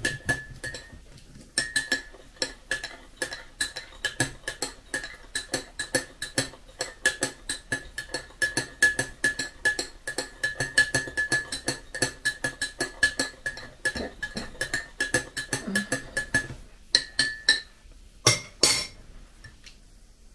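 Teaspoon stirring a drink in a glass mug, clinking against the glass about three to four times a second with a steady ringing note. Near the end come two louder clinks, then the stirring stops.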